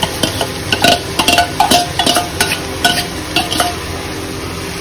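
A steel slotted spoon scrapes and knocks against a stainless steel bowl and pot as chopped carrots are tipped in, making a rapid run of ringing metallic clinks that stop near the end. Chicken and onions sizzle steadily in the pot underneath.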